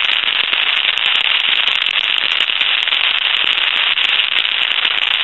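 Loud, steady sizzling and crackling static, a dense run of fine clicks, on the line audio of a Pottery Barn Grand Phone. It is the sign of a fault inside the phone: the handset cord has been ruled out, and the trouble lies on the main PC board, where leaky components were found.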